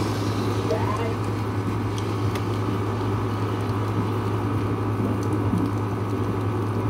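Steady rain falling during a thunderstorm, an even hiss with a few faint ticks, over a constant low hum. No thunder rolls.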